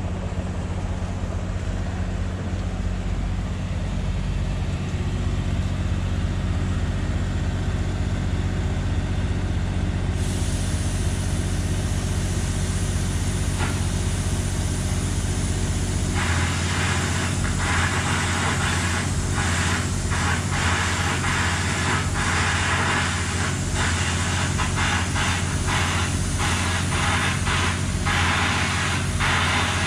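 Hitachi EX3600 mining excavator's diesel engine running steadily with a deep hum. About ten seconds in a hiss comes up over it, and from about sixteen seconds in short rushes of hiss come and go.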